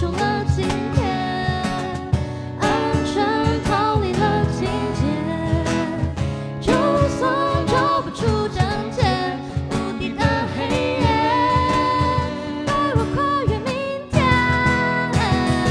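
Live acoustic band: a woman singing into a microphone over two acoustic guitars, with a cajón keeping a steady beat. Near the end the music drops off briefly and then comes back in louder.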